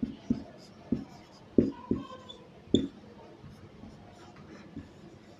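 Marker pen writing on a whiteboard: a string of short, irregularly spaced strokes, most of them in the first three seconds.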